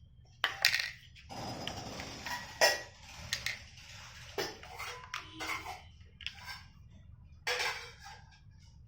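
Irregular clatter and knocks of hard objects being handled, with a few short rustling scrapes and the loudest knocks about half a second in, around two and a half seconds in, and near the end.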